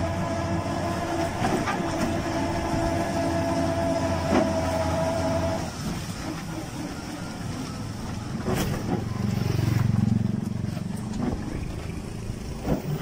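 Converted electric auto-rickshaw with a 48 V 800 W motor and shaft drive, on the move: a steady whine from the drive over a rattling, rumbling cab. The whine stops about halfway through, leaving the rumble of the body and a few sharp knocks from bumps in the road.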